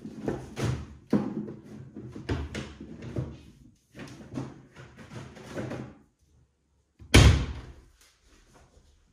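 Objects being handled and knocked about in several bursts of clattering, then one loud thump a little after seven seconds in.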